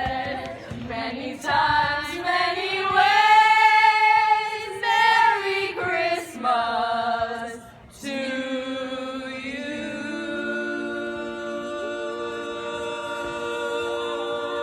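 A group of voices singing a Christmas song a cappella, without accompaniment. After a short break they hold one long chord, which shifts to a new chord partway through.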